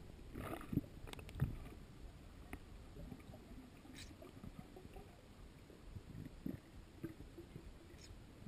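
Muffled underwater ambience heard through a camera housing: a faint low rumble with a few scattered clicks and knocks.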